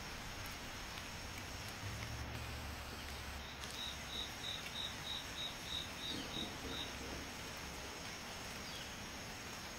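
A cricket chirping, about ten short high chirps in an even run of roughly three a second, over a faint steady hiss.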